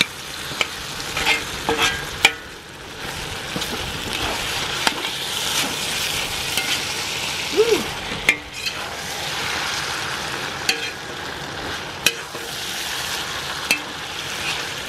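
Chopped bacon, pork and ham frying in oil in a steel discada (cowboy wok), with a steady sizzle. A metal spatula stirs the meat, scraping and clicking against the pan every second or two.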